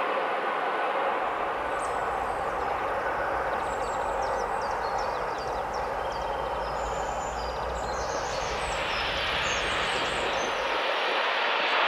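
Steady roar of a twin-engine jet airliner's engines after it has passed low overhead to land, with small birds chirping from about two to ten seconds in.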